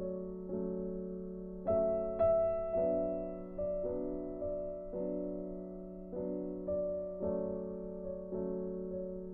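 Background piano music: slow, gentle notes and chords, each struck and left to fade.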